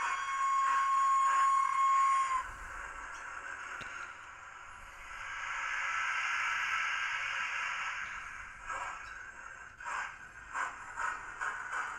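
A Hornby TTS sound decoder plays steam-locomotive sounds through the model's small speaker. A steady whistle is held for about two seconds at the start. A hiss then swells and fades in the middle, and a run of short puffs follows near the end.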